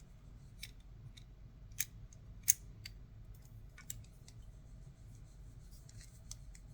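A few separate small, sharp clicks and taps of TSA luggage lock parts being handled and fitted back into the lock body, the sharpest about two and a half seconds in.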